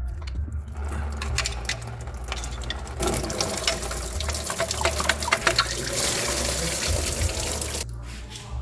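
A steady rushing hiss begins about three seconds in and stops abruptly about five seconds later, over scattered sharp clicks and a low steady hum.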